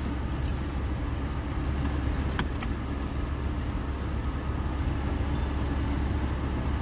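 A car running, heard from inside the cabin: a steady low engine rumble with the air-conditioning fan blowing. Two small clicks come about two and a half seconds in.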